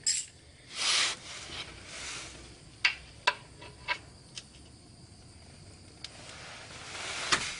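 Hand tools working the oil drain bolt loose: a few sharp, irregular metallic clicks among brief scraping and hissing rustles, with a louder click near the end.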